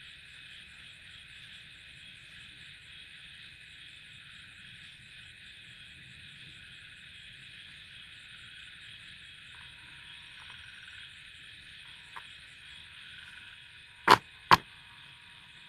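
Faint steady hiss with a thin high whine, broken about 14 seconds in by two sharp clicks about half a second apart.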